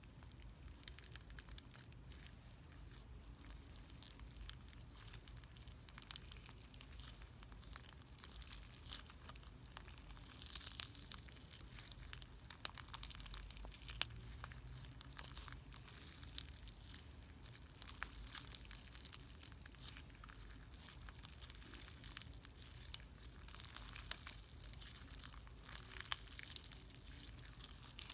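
A mix of icee slime and butter slime being worked and stretched by hand, giving a steady stream of faint sticky crackles and small clicking pops, with a few louder pops along the way.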